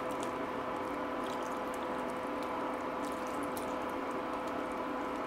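Sweet soy sauce simmering around cocktail sausages in a stainless saucepan, stirred with a wooden spoon as cornstarch slurry is poured in to thicken it. A steady hum from the induction hob runs underneath.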